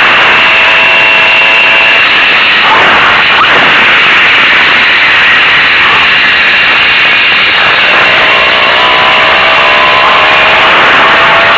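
Zündapp M50 Bergsteiger moped's small two-stroke single-cylinder engine running on the move, under a loud rushing noise. Its note fades in the middle and then climbs steadily over the last few seconds as it accelerates.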